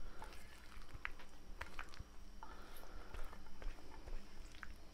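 Faint, wet squishing of mayonnaise-dressed pasta salad sliding out of a glass bowl onto a heap in another glass bowl, with a few light clicks.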